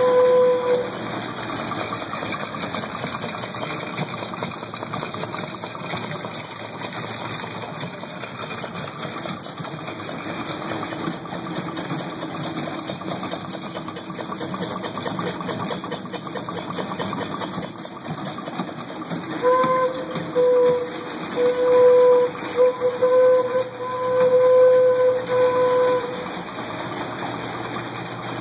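Pedal-driven air compressor running steadily on a bicycle rig, blowing air into a homemade organ pipe. The pipe sounds one steady note briefly at the start, then again about two-thirds of the way in as a string of seven or eight short toots over several seconds as the air pressure comes and goes.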